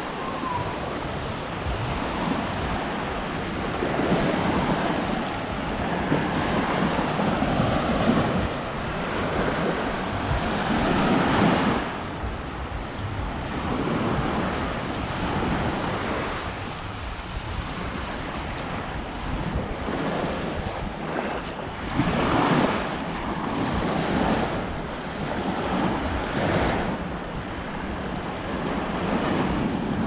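Small waves breaking and washing up a sandy shore, the surf swelling and falling back every few seconds, with wind buffeting the microphone.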